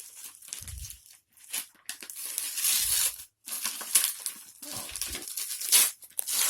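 A cardboard shipping box being cut and torn open through its packing tape: a series of noisy tearing strokes, with a few low bumps from the box.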